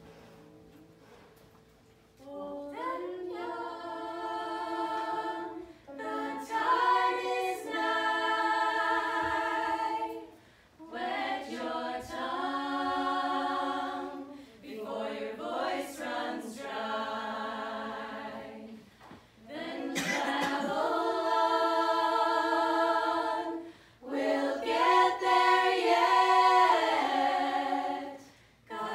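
A small group of voices singing unaccompanied, in sung phrases of a few seconds each with short breaks between them; the singing begins about two seconds in.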